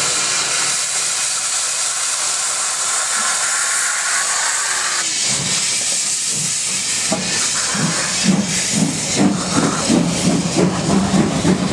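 Steam locomotive's open cylinder drain cocks blowing steam with a loud, steady hiss. From about seven seconds in, a steady beat of exhaust chuffs starts up under the hiss as the locomotive pulls away, a little over two a second.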